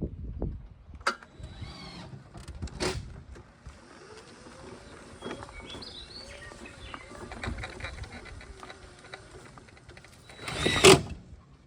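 Handling noises from hand work on a truck door: a couple of sharp clicks early on and a louder burst of noise near the end, over a low uneven rumble. Faint bird chirps sound in the middle.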